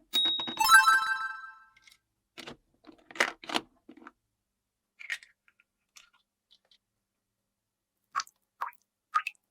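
A short ringing chime-like tone that dies away over about a second, then scattered light clicks and taps of small plastic toy pieces being handled.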